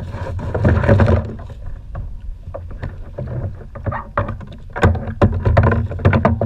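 Choppy water slapping against a plastic sit-on-top kayak's hull with a steady low rumble, joined from about two and a half seconds in by a quick run of sharp knocks and clicks as fishing line and a freshly caught smooth-hound are handled on deck.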